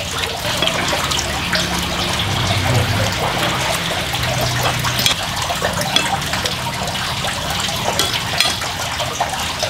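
Steady splashing of running water, with short clicks and scrapes of a knife and fork on a plate as a steak is cut.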